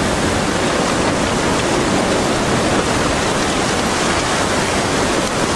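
Tsunami floodwater rushing past, carrying the wreckage of houses: a loud, steady rushing noise with no break.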